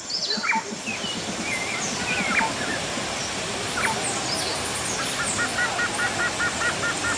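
Several birds calling over a steady background hiss: scattered whistles and chirps, and in the last couple of seconds a fast repeated call of about five notes a second.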